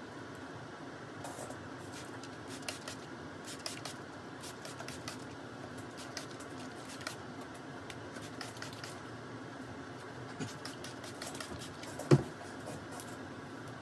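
Light scattered clicks and rustles of small objects being handled, over a steady room hum, with one louder knock about twelve seconds in.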